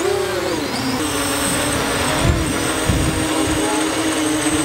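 Vusion Rise 250 mm racing quadcopter's electric motors and propellers whining as it lifts off and hovers; the pitch swings up and down in the first half-second, then settles into a steady drone.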